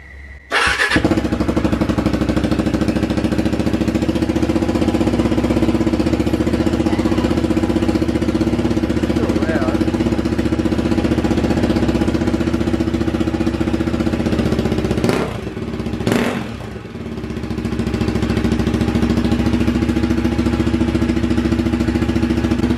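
KTM 390 Adventure's single-cylinder engine started on the electric starter, catching within about a second, then idling steadily through a newly fitted cheap generic aftermarket muffler. The note dips briefly about fifteen seconds in before settling back to idle. The exhaust is loud, judged afterwards as a little quieter than the old muffler but still obnoxious.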